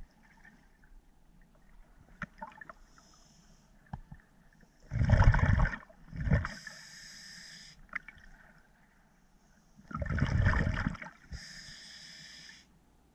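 Scuba breathing through a regulator, heard underwater: twice, a loud gush of exhaled bubbles is followed by the steady hiss of the regulator on the inhale.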